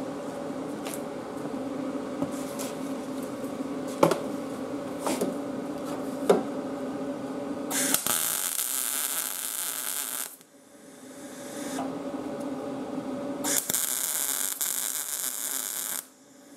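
Wire-feed welding gun's arc running in two bursts of about two and a half seconds each, starting about eight seconds in, as a steel patch plate is welded onto a rusted mower deck. Before the first burst there is a steady hum with a few light knocks.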